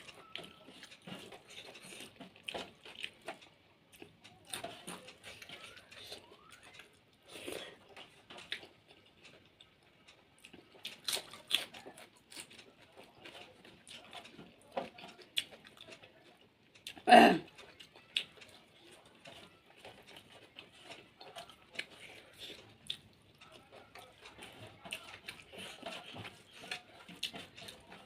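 Close-miked eating sounds: chewing, mouth clicks and small crackles, with light knocks from the meal. There is one short, much louder noise about 17 seconds in.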